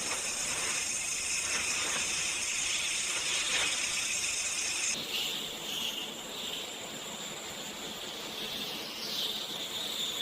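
Forest ambience dominated by a steady, high-pitched insect drone that changes in tone about five seconds in.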